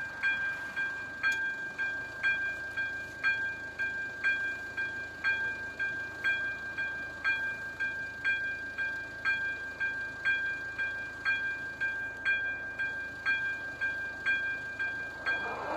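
Level-crossing warning bell ringing, a steady, evenly repeated electronic ding that goes on without a break. It is the warning that a train is approaching and the barriers are about to lower.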